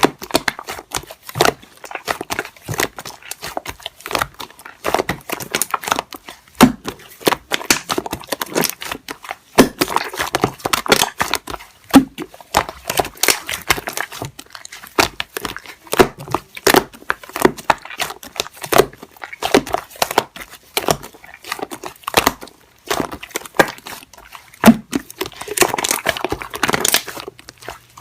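Slime being squeezed and poked by hand, a dense run of small wet clicks and crackles.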